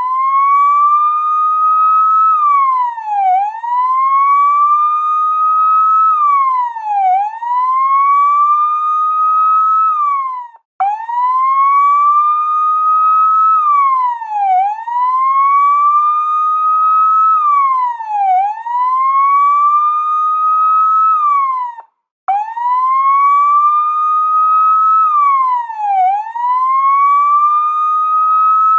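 Police car siren wailing, its pitch climbing slowly and then dropping quickly, over and over about every four seconds. Twice it cuts out for a moment and starts again from low.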